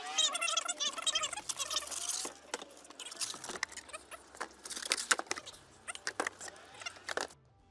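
Cardboard blender box being opened and unpacked by hand: squeaky rubbing for the first couple of seconds, then a run of rustles, scrapes and light knocks of cardboard and packing as the base is lifted out. The sound cuts off sharply shortly before the end.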